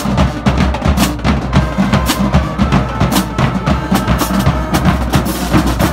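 High school marching band playing: a drum line of snare, tenor and bass drums beating a fast, busy rhythm, with cymbal crashes about once a second and brass horns playing along.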